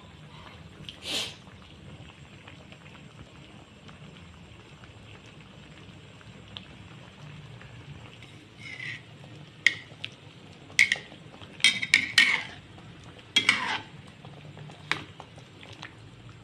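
Metal spatula clinking and scraping against a metal cooking pot while stirring coconut-milk vegetable stew. The clinks come in a cluster of sharp strikes from about nine to fifteen seconds in, over a steady low hum.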